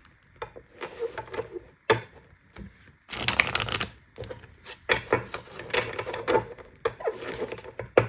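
A deck of oracle cards being handled and shuffled by hand: scattered taps and slides of cards, a dense shuffle about three seconds in, and steady card patter from about five seconds on.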